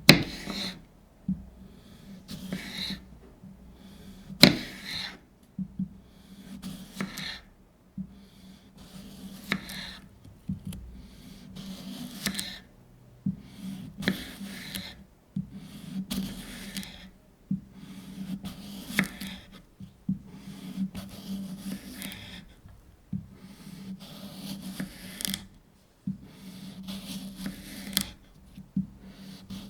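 Knife slicing through a fresh cucumber on a cutting board: a slow, uneven series of crisp cuts, one every second or two, many ending in a sharp knock of the blade on the board.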